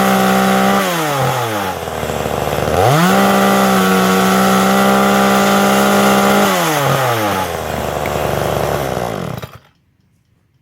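Forest King chainsaw revved to full throttle for a cut, dropping back to idle about a second in, revving up again for a second long run, falling back to idle, and then shut off near the end.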